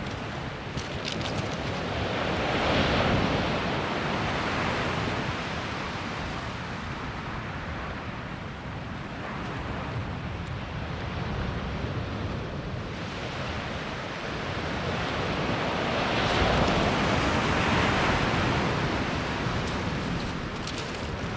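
Small surf breaking and washing up a shingle or sand beach, swelling to a peak twice, a few seconds in and again about three quarters of the way through.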